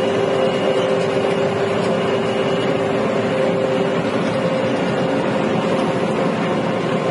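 Combine harvester running steadily while cutting wheat: a constant machinery drone with two held humming tones, heard from inside the cab.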